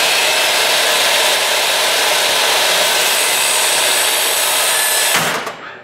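SawStop jobsite table saw's universal motor running at full speed with a steady high whine, the blade spinning free. About five seconds in the sound cuts off abruptly as the flesh-sensing brake fires on contact with the hot dog and the blade drops below the table.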